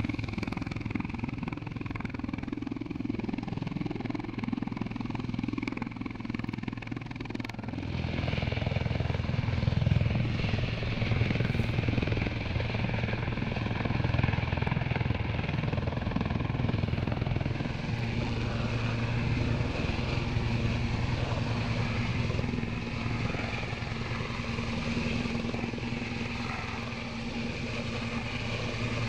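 Steady engine and rotor noise from a sea-rescue helicopter hovering over the water, mixed with rescue boats' motors. The sound grows a little louder and deeper about eight seconds in.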